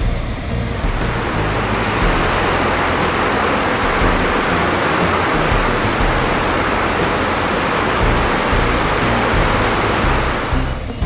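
Chitrakote Falls, the Indravati River in monsoon flood pouring over its horseshoe-shaped drop: a loud, steady rush of falling water. It swells in about a second in and falls away just before the end. Background music with low bass notes runs under it.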